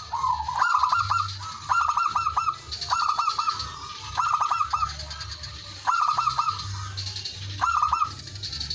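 Male zebra dove (perkutut) singing: six short phrases of quick, rapidly repeated cooing notes, each under a second long, with about a second between them.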